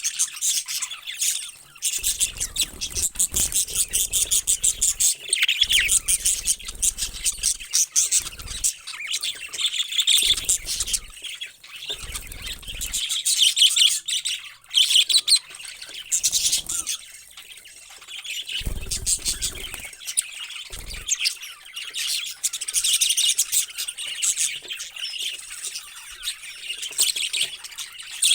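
Parrots chirping in a dense, unbroken chatter of quick, high calls from several birds at once.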